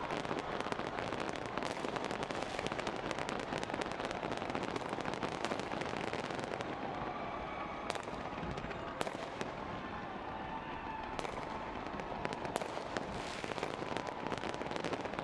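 Fireworks going off in a dense, continuous crackle, with several sharper single bangs standing out in the second half.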